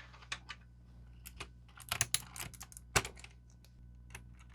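Irregular plastic clicks and taps from a 60% mechanical keyboard's keys and keycaps being handled, with a small cluster of clicks about halfway through and one sharper click soon after.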